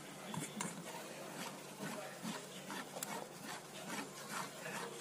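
A spatula stirring soaked oats and warm water in a stainless steel bowl. Faint, quick, irregular wet scraping and rubbing strokes against the bowl.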